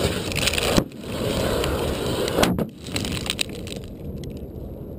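Bomb explosion: loud blast noise with flying debris, broken off sharply twice, then a lower rumble with scattered crackles and knocks that slowly fades.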